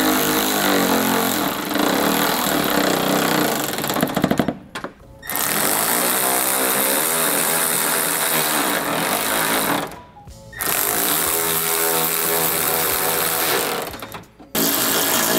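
Milwaukee cordless ratchet running in several stretches of a few seconds each as it drives headlight mounting bolts down, with short breaks about five, ten and fourteen seconds in.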